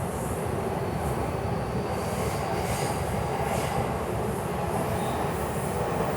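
Yamanote Line E235-series electric train running just after its doors have shut, a steady rumble of wheels on rail with a faint high whine.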